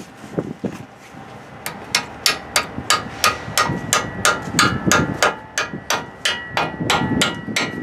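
Hammer striking the rear disc-brake caliper of an International 4700 truck: a quick run of metal-on-metal blows, about three a second, starting a couple of seconds in, with a ringing tone from the struck metal.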